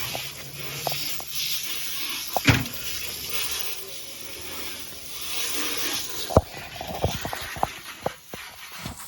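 Water spraying from a garden hose with an uneven hiss, broken by sharp knocks and clicks, the loudest about six seconds in.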